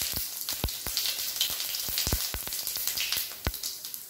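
Whole cumin seeds sizzling in hot mustard oil in a kadai, a steady hiss with frequent sharp pops and crackles as the seeds fry for the tempering.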